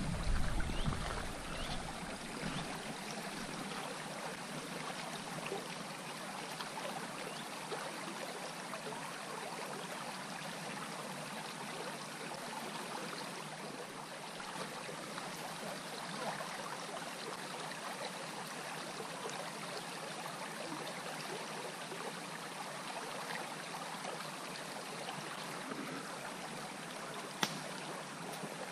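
Shallow river babbling steadily over a stony riffle, with a single sharp click near the end.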